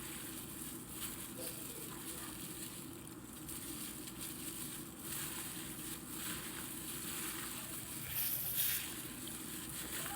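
Gloved hands working raw chicken coated in olive oil and seasoning: soft wet squishing and glove crinkling over a steady low hum, with a brief louder rustle about eight seconds in.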